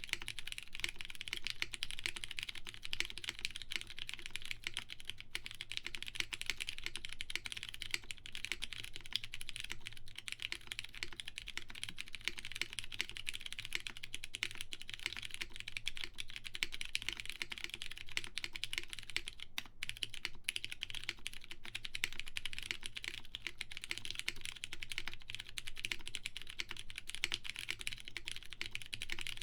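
Steady fast typing on a plateless Martingale mechanical keyboard with lubed Cherry MX Brown switches and GMK keycaps: a dense, continuous stream of key strokes, with a brief pause about two-thirds of the way through.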